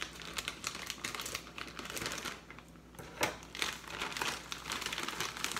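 A white plastic mailer bag crinkling and rustling as it is opened and pulled apart by hand, with a sharper crackle about three seconds in.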